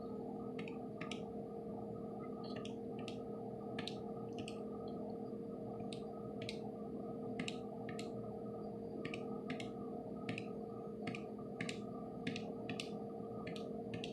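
About twenty sharp clicks at irregular intervals, often two close together, of buttons being pressed and released on a 4x4 matrix keypad, over a steady low hum.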